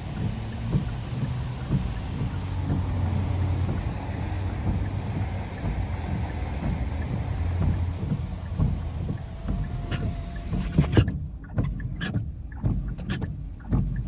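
Low steady rumble of a car heard from inside the cabin in the rain, with irregular soft knocks and a hiss of noise. The hiss cuts off abruptly about eleven seconds in.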